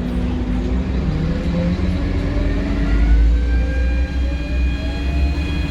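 Scania K230UB bus's diesel engine pulling under acceleration, with a deep rumble. A whine climbs steadily in pitch, including the loud whistle of its turbocharger spooling up.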